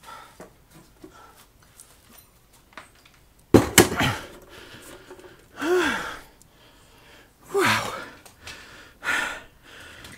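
A heavy vintage W-100 vacuum tube amplifier set down on a workbench with a loud thud about three and a half seconds in, followed by a person's strained grunts and heavy breathing from the effort of carrying it.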